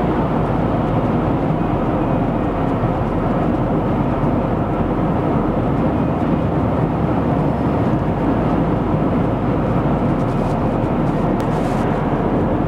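Steady road noise inside the cabin of a 2025 Cadillac LYRIQ electric SUV cruising at about 65 mph: tyre and wind noise with no engine note.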